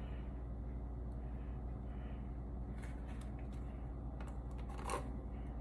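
A few faint, scattered taps and clicks of hands handling food on a plate while toppings go onto a taco, over a steady low hum, with one slightly louder tap near the end.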